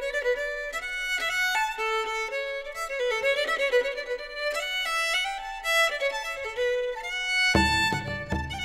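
Background music: a quick, fiddle-like string melody that starts abruptly, with a low, evenly pulsing beat joining near the end.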